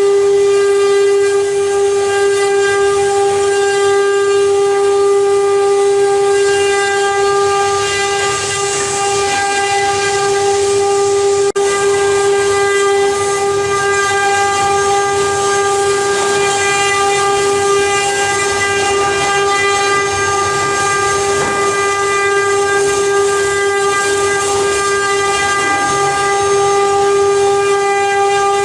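CNC wood-carving router spindle running at a steady high speed with a constant high whine, over a hiss of cutting noise.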